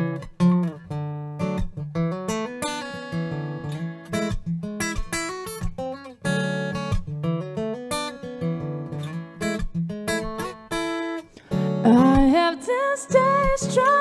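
Steel-string acoustic guitar played solo, chords plucked and strummed in a steady pattern. About twelve seconds in, a woman's voice starts singing over it.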